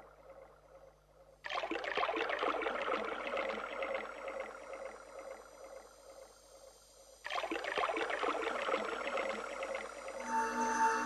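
Electronic computer music: a dense noisy texture comes in suddenly about a second and a half in and slowly fades, comes in suddenly again about seven seconds in, and near the end gives way to a held chord of steady tones.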